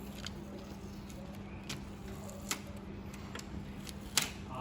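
A few sharp, scattered clicks and taps of parts and tools being handled, over a steady low hum.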